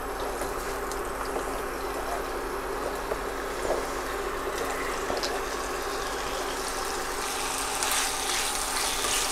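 Diced raw chicken frying in hot olive oil in a frying pan: a steady sizzle that grows louder as more pieces go in. Near the end a few short scrapes of tongs turning the chicken.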